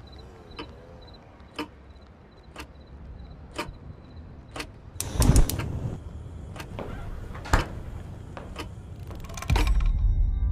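Film trailer sound effects: sharp ticks about once a second over a faint background, a louder clatter about five seconds in, and a low swell starting near the end.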